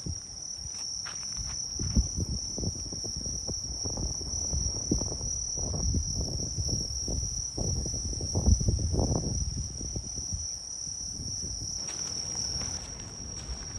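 Night insects trilling in one continuous, steady high-pitched chorus, with several fainter steady tones above it. Irregular low rustling and thumps sound beneath it, loudest around the middle.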